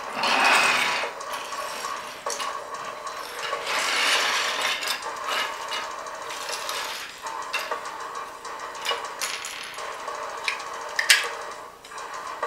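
Small hard plastic model-kit parts being handled, knocking and clicking on a tabletop and against each other as they are sorted and snapped together, with paper rustling in swells, the longest about the first second. A sharp click just after eleven seconds is the loudest sound.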